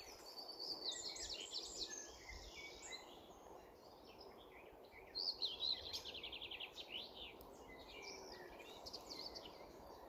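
Wild birds singing: quick twittering song phrases about a second in, then a livelier bout with a fast trill from about five seconds in, over a faint steady background rush.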